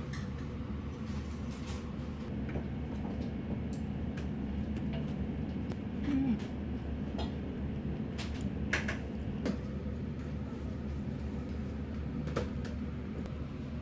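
Steady low hum of a quiet restaurant dining room, with a few light clicks and clinks of tableware. One clink comes near the end, as a metal spoon dips into a ceramic soup bowl.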